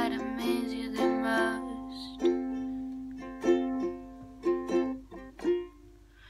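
Makala ukulele strummed, each chord ringing on, with the playing dying away near the end.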